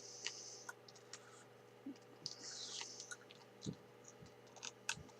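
Faint, scattered computer mouse clicks at a desk, with a couple of short soft hissy rustles near the microphone.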